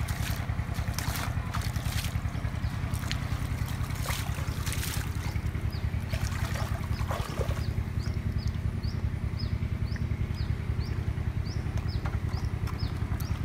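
A small engine runs steadily with a fast low throb. Water splashes as hands work in shallow muddy water during the first few seconds, and short high chirps repeat about twice a second in the second half.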